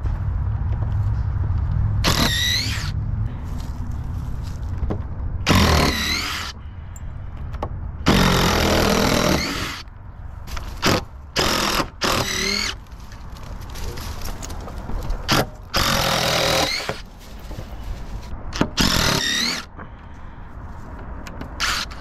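Cordless drill/driver backing screws out of wooden boards in repeated short bursts, its motor whine rising in pitch each time the trigger is pulled, with squealing and grinding from the screws in the wood.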